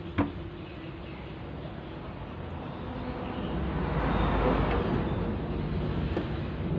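A steady low background rumble that swells and fades over a couple of seconds around the middle, like a vehicle passing by.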